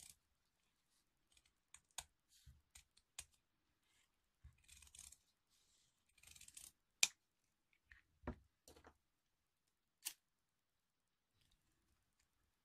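Scissors trimming the tails of a ribbon: several sharp snips at uneven intervals, the loudest a little past the middle, with short rustles of the ribbon between them.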